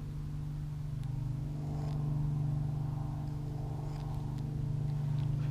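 Light aircraft engine droning steadily as it flies close by, swelling slightly about two seconds in. A few faint knife cuts into the dry willow spoon's end grain come through under it.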